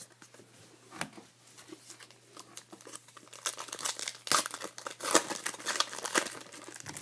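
Crinkling and tearing of a trading-card pack wrapper being opened by hand, in a run of rustling strokes that grows busiest and loudest in the second half.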